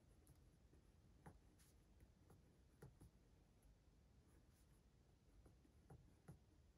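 Pen writing on notebook paper, faint: soft, irregular scratches and light taps of the pen tip as words and figures are written.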